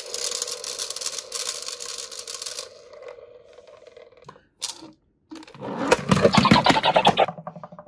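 Plastic battery-powered Lightning McQueen toy stunt car with its small electric motor running and wheels spinning free in the air: a steady whir with a hiss. About five and a half seconds in, it rattles and clatters loudly for nearly two seconds as it drives and tumbles on a wooden tabletop.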